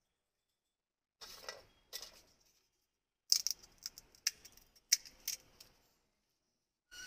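Light crackles and sharp clinks of fuchka-making by hand: crisp puri shells being cracked open and a spoon knocking in a bowl of potato filling. A couple of softer crackles come about a second in, then a quick run of sharper clicks in the middle.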